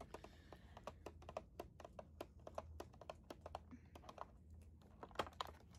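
Quick, light tapping on a toy's crinkly packaging: faint, irregular clicks, several a second.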